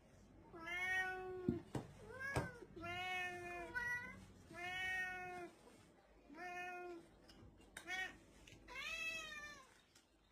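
Domestic cat meowing again and again, about five drawn-out meows that rise and fall in pitch, as it begs for food at the table.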